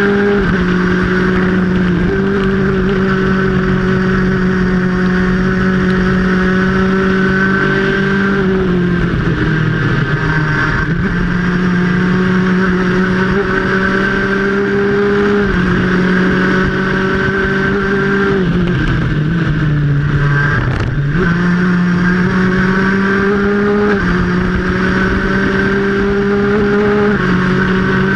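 Onboard sound of a Stock Honda class superkart's engine at racing speed. Its pitch holds high for long stretches with small steps, dips twice as the kart slows, then climbs again.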